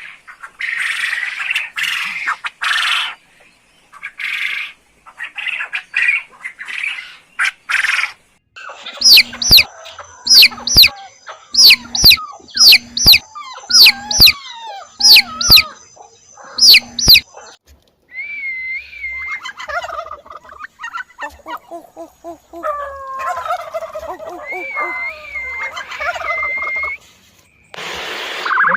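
Domestic fowl calling, several kinds one after another. Harsh, raspy calls come first. Then loud, sharp calls repeat about twice a second for several seconds. Last come softer wavering, warbling calls.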